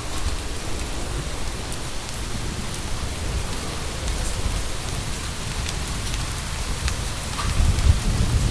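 Thunderstorm soundscape: steady heavy rain with scattered drop ticks and a low rumble of thunder that swells near the end.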